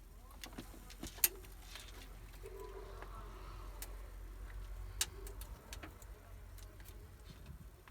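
Scattered sharp clicks and handling noise of wiring being tied up with cable ties, over a steady low hum.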